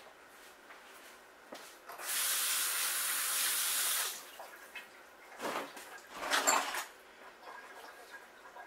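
Kitchen sink faucet running for about two seconds as celery is rinsed under it, then a couple of short knocks and clatters.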